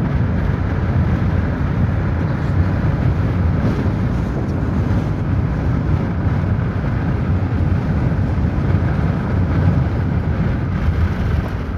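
Steady low rumble and noise of a moving vehicle, with no breaks.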